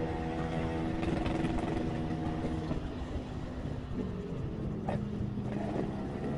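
Motorcycle engine running with road traffic around it; the engine note shifts about four seconds in.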